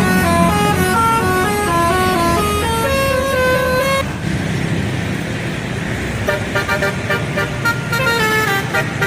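Bus telolet horn playing a quick tune of stepped, shifting notes over the bus engine's low rumble. About four seconds in the tune breaks off into engine and traffic noise, and from about six seconds short rapid horn notes start up again.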